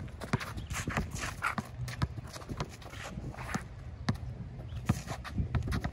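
A basketball being dribbled and sneakers stepping and scuffing on an outdoor hard court: an irregular run of short thuds and scrapes.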